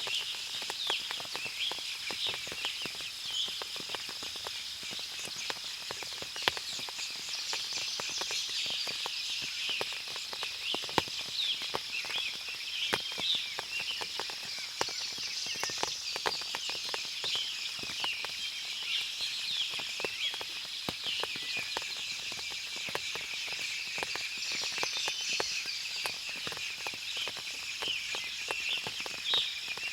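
Forest ambience after rain: many birds chirping and calling densely over a steady high-pitched hum, with scattered sharp clicks throughout.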